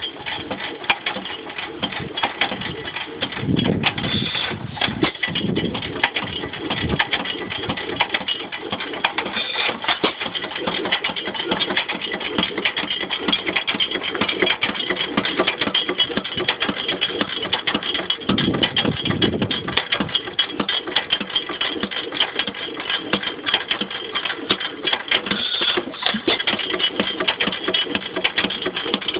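8 hp Waterloo Boy hit-and-miss stationary gas engine running just after being fired up for the first time. Its valve gear and pushrod keep up a steady fast clatter, with a few louder low beats.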